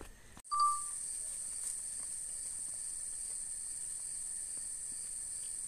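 Steady, high-pitched drone of insects, such as cicadas or crickets, starting suddenly about half a second in, with one short whistled note just after it begins.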